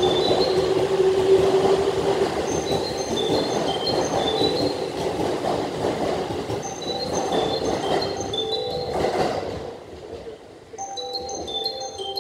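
An E231-series electric commuter train pulling out of the platform: the rumble of wheels on rail and a steady motor whine, loudest at first and fading as it leaves. A short high chime figure repeats about every two and a half seconds over it, and near the end a different chime tune starts.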